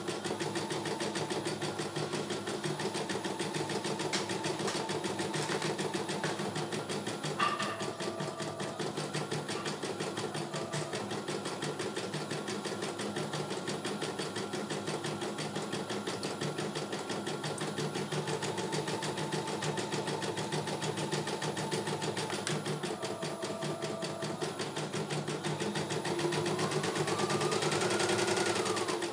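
CNY E900 computerized embroidery machine stitching a design: a fast, steady needle rhythm with the hoop being stepped under it. Near the end a rising whine builds and the machine stops.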